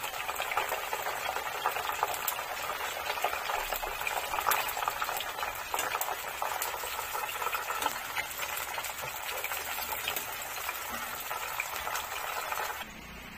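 Breaded chicken breasts deep-frying in a pot of hot oil: a dense, steady sizzle and crackle with small pops throughout. It drops away sharply just before the end.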